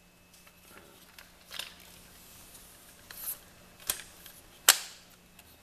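A tripod being handled: a few scattered clicks and knocks of its parts, the sharpest near the end.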